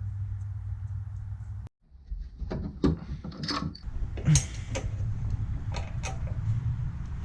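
A steady low hum, then after a sudden break a string of irregular clicks and knocks of metal parts and hand tools being handled during battery-terminal work.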